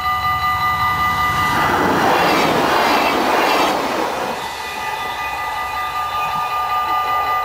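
Passenger train passing close by a level crossing, its rushing wheel noise loudest from about one and a half to four seconds in. Throughout, the crossing's warning bell rings rapidly, about four strokes a second, and is briefly drowned by the train.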